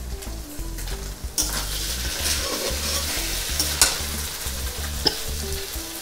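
Boiled potatoes and spice paste sizzling in a hot metal karai while a metal spatula stirs them, with a couple of sharp knocks of the spatula against the pan. The sizzle comes up about a second and a half in. The spices are being fried down (kashano) for aloo dum.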